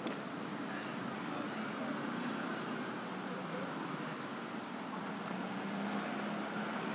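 Street traffic: motor scooters and cars running along the road in a steady hum, with an engine note growing stronger near the end.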